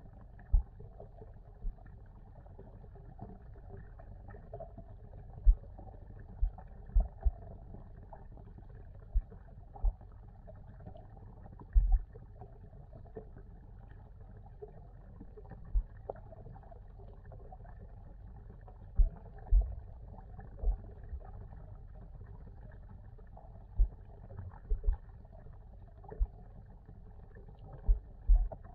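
Muffled underwater sound picked up by a camera submerged in a pond: a steady low rumble of the water, with irregular dull low thumps every second or two.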